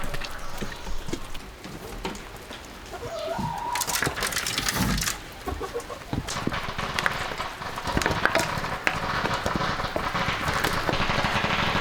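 Chickens clucking, with a short call about three seconds in, over a steady hiss and scattered clicks.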